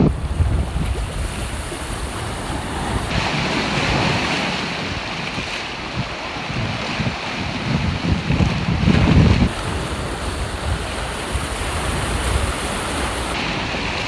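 Ocean surf washing and churning around sea rocks, with wind buffeting the microphone in low gusts, strongest about two-thirds of the way in.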